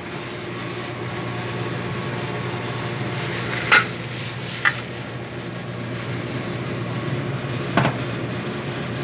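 Steady mechanical hum with three short knocks: one a little under four seconds in, another about a second later, and a last one near eight seconds.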